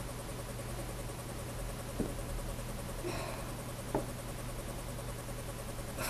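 Quiet room tone: a steady low hum and hiss, with two faint clicks about two and four seconds in.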